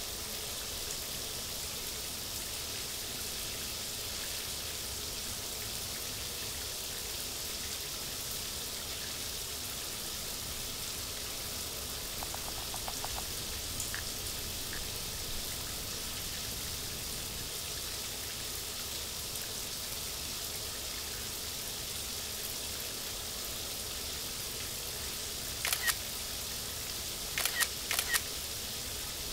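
Shower running: a steady hiss of water spraying from a handheld shower head, with a few sharp clicks near the end.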